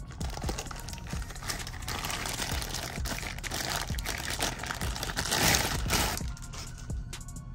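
Packaging crinkling and rustling as it is handled and pulled open to get a new power tool out, dying down about six seconds in.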